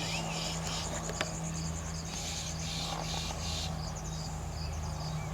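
Insects trilling in repeated pulses, with a few short rising bird whistles in the first second, over a steady low hum.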